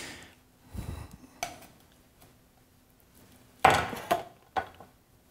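Kitchen utensils knocking: a spatula scraping and tapping against a glass measuring cup over a stainless steel mixing bowl. There are a couple of soft knocks about a second in and a louder cluster of sharp knocks later on.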